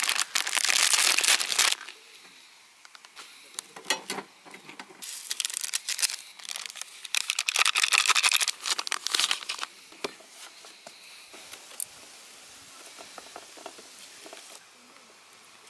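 Plastic instant-ramen packet crinkling and tearing open in two long bouts of rustling, the second about five seconds in, followed by softer small rustles and clicks.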